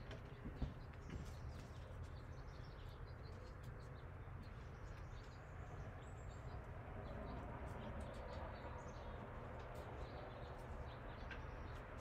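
Quiet room tone: a steady low hum with scattered faint, high chirps.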